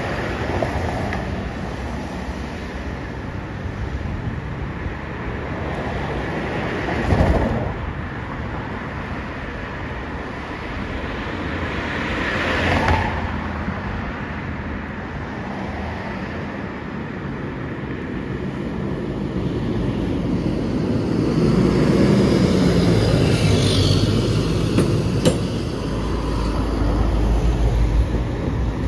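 Cars pass on a city street twice, then a fire department aerial ladder truck approaches and drives past. Its heavy diesel engine gives a deep rumble that builds over the last several seconds. No siren sounds.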